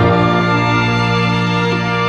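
Background music with slow, sustained chords; the chord changes right at the start.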